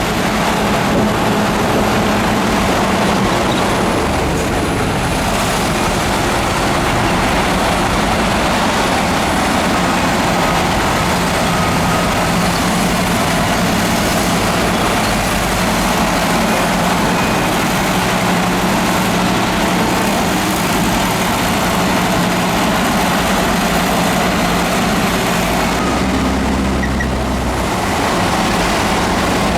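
Heavy diesel construction machinery running steadily under load, with a faint high whine over the engine.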